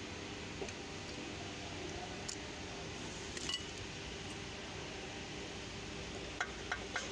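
Steel rod clinking against the metal of a Toyota Land Cruiser front hub: a few light metallic clinks, three in quick succession near the end, over a steady background hum.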